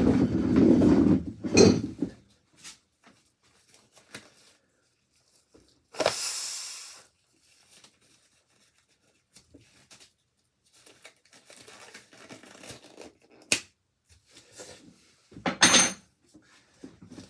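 Scattered clanks, clicks and rattles of a fixed-gear bicycle's wheel and chain being worked loose and taken off by hand. A loud jumble of handling comes in the first two seconds, then a short rustling burst about six seconds in, then sparser clicks and knocks.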